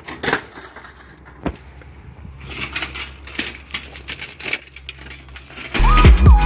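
Clattering of a smashed flat-screen TV's parts, its thin sheet-metal back cover and plastic casing pieces knocking and scraping on asphalt as they are tossed and handled: a string of sharp knocks. Near the end, loud hip-hop music with a steady beat comes in and covers everything.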